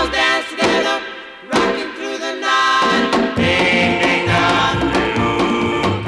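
Doo-wop record: a vocal group singing over a rock-and-roll band, with a short drop in the music about a second in.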